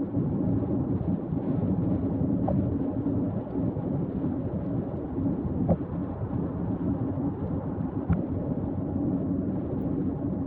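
Steady low rumbling noise with a few faint brief clicks.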